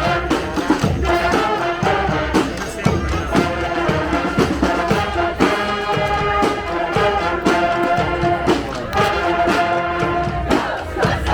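Street brass band playing: horns holding chords over a steady beat of drum strokes.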